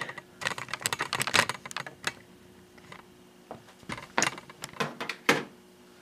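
Hard plastic clicks and rattles of an IDE-to-USB adapter cable being handled and its USB plug pushed into a front port of a desktop PC tower, coming in irregular clusters, densest in the first two seconds.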